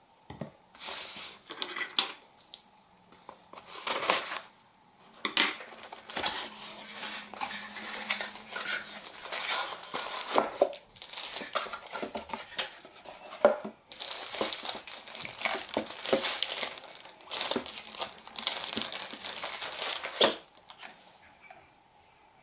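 Plastic packaging crinkling and rustling in irregular bursts as items are unwrapped, with a few sharp clicks; it stops near the end.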